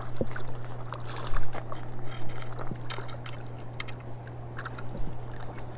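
Small waves lapping and splashing against the bank at the water's edge, with scattered light clicks, over a steady low hum.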